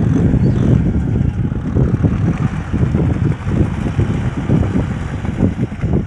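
Kubota M6040 tractor's diesel engine running as it works through the mud, mixed with wind buffeting the microphone in a loud, uneven low rumble.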